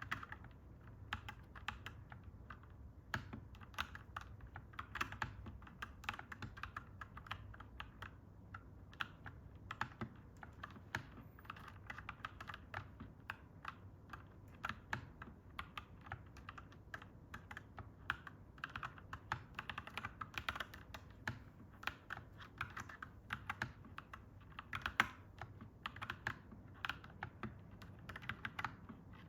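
Mechanical keyboard typed on continuously, clacky keystrokes in an uneven typing rhythm, with one noticeably louder key strike near the end.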